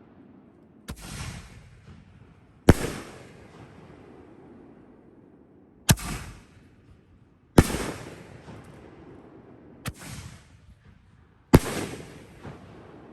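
Five-inch canister firework shells being fired from mortars: six loud sharp booms about one to three seconds apart, each followed by a long echoing rumble as the lifts and aerial breaks go off.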